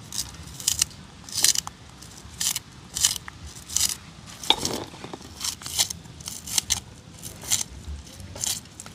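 Knife cutting through scallion: a run of short cuts at an uneven pace, a little under two a second, with one fuller, lower knock about halfway through.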